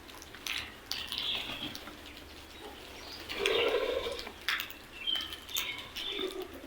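Crows calling: a series of short harsh calls, the loudest and longest one about halfway through, with a few sharp clicks between them.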